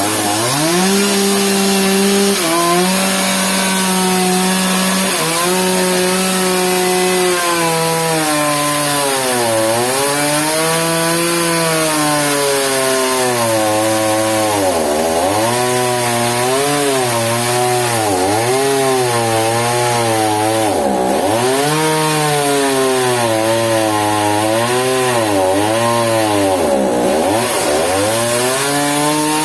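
Chainsaw cutting wood. The engine runs at a high, steady pitch, then from about eight seconds in it repeatedly drops and recovers as it bogs under load in the cut.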